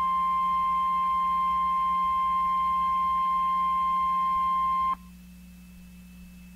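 NOAA Weather Radio's 1050 Hz warning alarm tone: one steady, high, piercing tone that cuts off abruptly about five seconds in, leaving only faint radio hum and hiss. The tone signals that a weather alert message follows.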